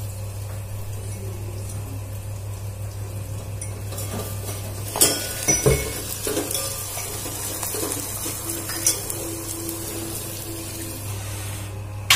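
Tempering frying in a steel pot, stirred with a steel ladle that scrapes and clanks against the pot, over a steady low hum. A few sharp clanks come about five seconds in, and a sizzling hiss follows as the pot is stirred.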